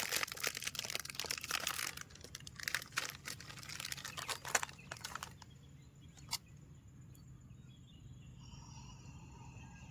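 A plastic biscuit wrapper crinkling as it is opened and handled for about five seconds, then one sharp click. Near the end, birds start calling steadily.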